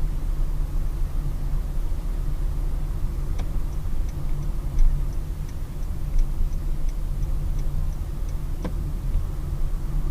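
A car driving, heard from inside the cabin as a steady low rumble of engine and road. About a third of the way in, a turn-signal indicator starts ticking about three times a second, and it stops with a sharper click near the end.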